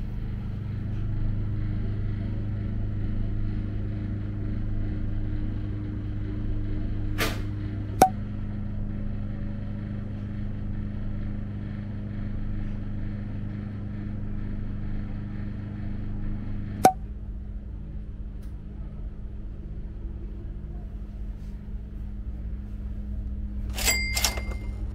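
Steady low engine drone of a passenger ferry heard on board, with an even hum and its overtones. The sound changes abruptly with a sharp click about 8 and 17 seconds in, and a couple of short high pings come near the end.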